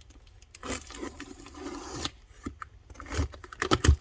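Cardboard box and packing being opened and handled: scattered clicks and rustles, with two heavier knocks about three and almost four seconds in.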